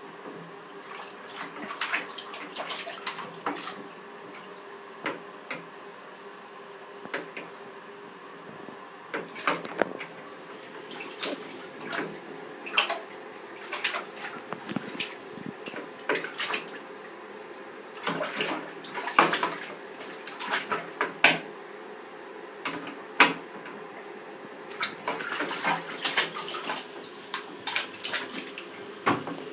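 A baby splashing bath water with her hands in a plastic infant tub: irregular slaps and splashes, sometimes several in quick succession.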